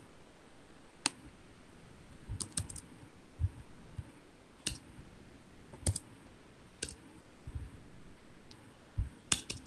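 Computer keyboard keystrokes and clicks, sparse and irregular: single taps and short clusters of two or three, faint against a quiet background.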